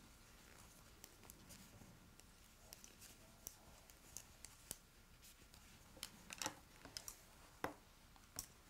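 Knitting needles clicking and tapping against each other as stitches are worked: faint, irregular clicks with a small cluster about six seconds in, over a near-silent room.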